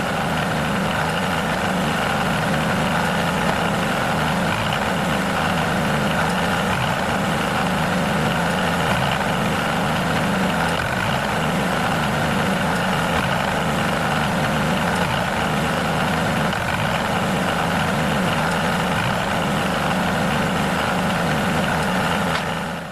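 A motor running steadily without change, with a constant low hum and a higher whirring band above it.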